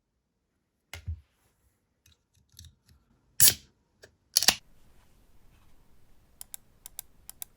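A few knocks and bumps, two of them loud and sharp, then about six seconds in a short run of crisp keystrokes on a mechanical keyboard with factory-lubed Gateron Cream Soda linear switches.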